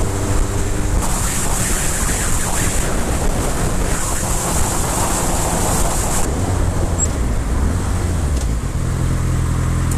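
Motorcycle ridden at speed: loud wind rush over the microphone with the engine running underneath, its steady note clearest in the first second and again from near the end.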